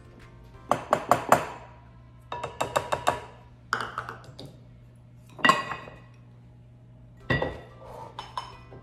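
Measuring cup knocked against a glass mixing bowl to tap out flour: quick clusters of ringing clinks. Then a few single clinks and one heavier knock as utensils are set down on the counter.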